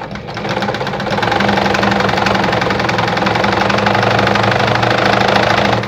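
Juki DIA Rotary 7 sewing machine sewing a zigzag stitch, running fast and steady. It picks up speed over the first second and stops abruptly near the end.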